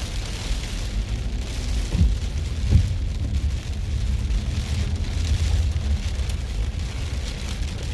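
Heavy rain pelting a moving car, over the low rumble of the car on the road, with two short thumps about two and three seconds in.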